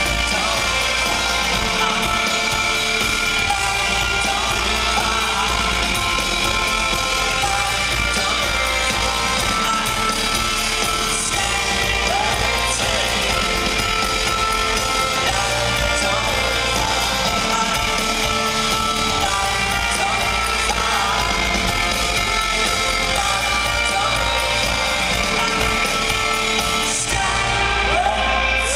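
A live band playing through a PA, heard from the audience: singing over acoustic guitars, drums and trumpet.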